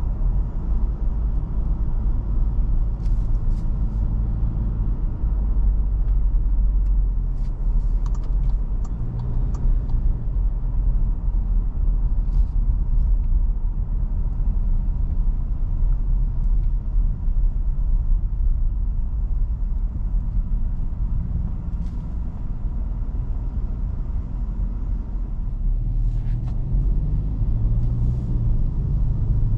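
A Toyota Fortuner's naturally aspirated 2.7-litre four-cylinder petrol engine and tyres as the SUV drives along: a steady low rumble, with the engine hum rising a few times and a few faint clicks.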